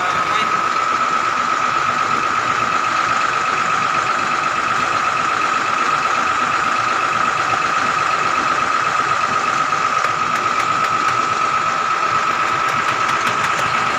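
Vehicle engine idling steadily, with a steady high-pitched whine over it, while the air conditioning is being recharged with freon. A few faint ticks come near the end.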